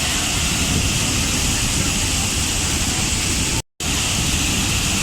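Waterfall: a steady, loud rush of falling water that cuts out completely for a split second about three and a half seconds in, then resumes unchanged.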